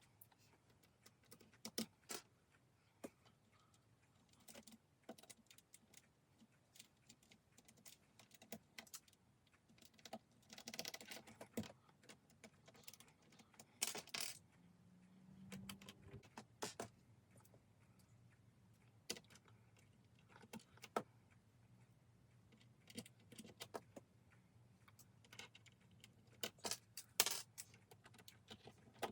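Plastic keycaps being handled and pressed back onto the brown switches of an RK61 mechanical keyboard: faint, scattered clicks with quiet gaps between them. Around the middle there is a brief clatter of loose keycaps.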